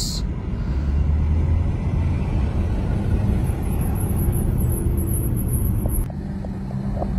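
Car driving on a freeway, heard from inside the cabin: a steady low rumble of road and engine noise. About six seconds in, the rumble drops slightly and a steady low hum comes in.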